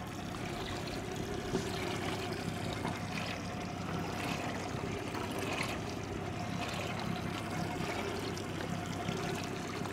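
Water trickling and splashing, with a faint steady hum underneath.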